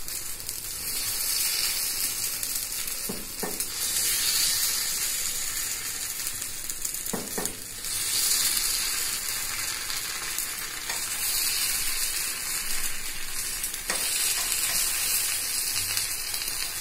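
Paniyaram of dosa batter frying in oil in the wells of a kuzhi paniyaram pan over a gas flame, with a steady sizzle. A few light clicks come as a fork turns the balls over in their wells.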